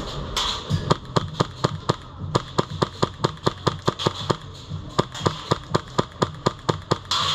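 Airsoft gun firing a long string of rapid single shots, about five a second, with a brief pause about two seconds in.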